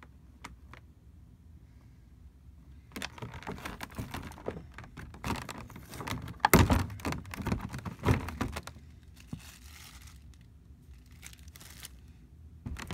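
Clear plastic packaging crinkling and rustling as it is handled, starting about three seconds in. A sharp thunk comes about halfway through.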